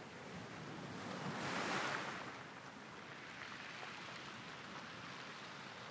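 Ocean waves washing on a shore: one wave of surf swells up and peaks about a second and a half to two seconds in, then draws back into a steady wash.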